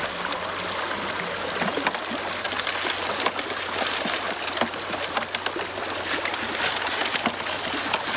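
Creek water running through a Keene aluminium sluice box while a scoop of gravel and pebbles is fed in, the stones clattering and ticking against the metal over the steady water noise.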